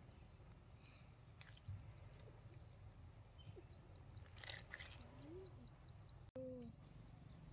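A few faint, short whimpers from puppies, rising and falling in pitch, over a steady high insect drone with regular ticking.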